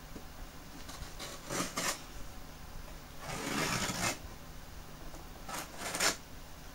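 A folding knife blade slicing the packing tape on a cardboard shipping box: a couple of short scraping cuts, a longer drawn cut about three seconds in, and two more short cuts near the end.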